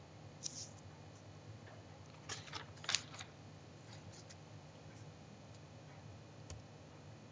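A steady low hum with a few faint clicks, and a short cluster of rustling clicks about two to three seconds in.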